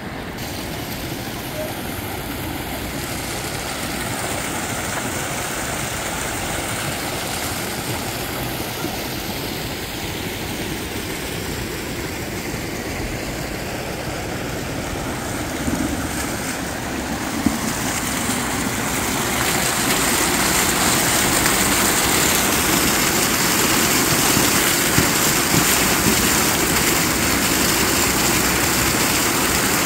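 Water jet splashing into a pond: a steady rushing hiss that grows louder about two-thirds of the way through.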